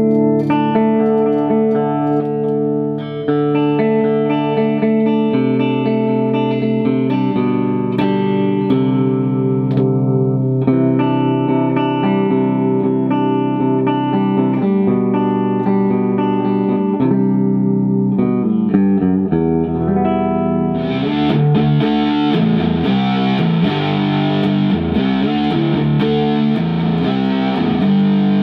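Electric Telecaster with its two pickups wired in series (fourth position of a 4-way switch), played through an amplifier: held, ringing chords and single notes with a thick, full tone. About twenty seconds in, the playing turns faster and the sound brighter and more distorted.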